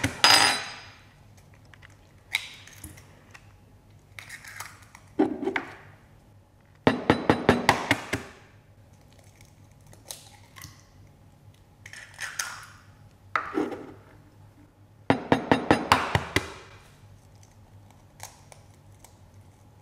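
Raw eggs being cracked against the rim of a ceramic bowl: two bursts of quick sharp taps of shell on the bowl, with shorter crackling shell sounds between.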